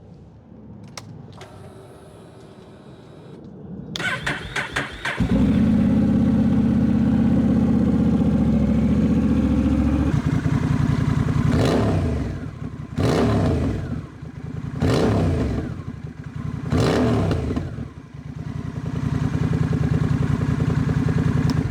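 Honda Rebel 1100's parallel-twin engine cranked by the starter about four seconds in and catching, running at a fast idle, then dropping to a steady idle. It is then revved four times in quick throttle snaps, each rising and falling, and settles back to idle. The snaps are done to purge trapped air from the freshly refilled cooling system.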